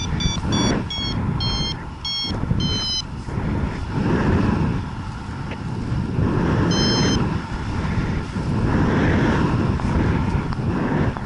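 Wind buffeting the microphone in gusts, with a paragliding variometer beeping: a run of short beeps that slow over the first three seconds, then a single beep about seven seconds in, the vario signalling climb in lift.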